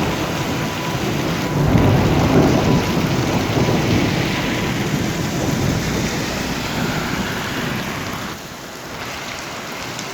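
Heavy monsoon rain pouring, a dense steady hiss. A low rumble joins it about one and a half seconds in, and the whole sound eases slightly near the end.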